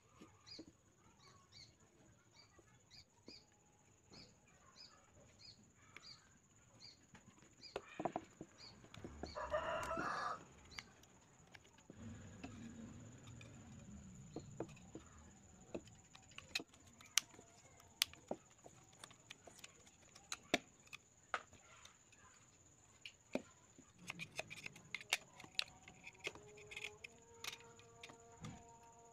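A rooster crows once, about ten seconds in: the loudest sound, a pitched call lasting about a second and a half. Faint chirps repeat about twice a second before it. Sharp small clicks and taps come from hands handling wooden parts and a green bamboo tube.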